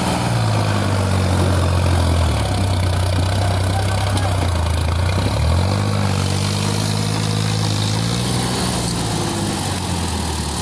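Sonalika DI 745 III tractor's three-cylinder diesel engine working hard, hauling a trolley loaded with sand out of soft ground. The engine speed shifts several times, dipping sharply about five and a half seconds in and then picking up again.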